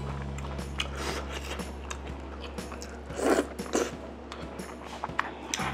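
Eating sounds: chewing and biting into braised chicken in black-bean sauce, with short sharp clicks of chopsticks against the pot. Background music with steady low tones runs underneath and cuts out near the end.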